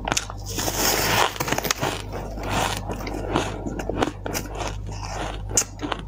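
Bite into a lump of soft white ice, then chewing it: a dense crunching over the first two seconds, followed by many short, sharp crunches.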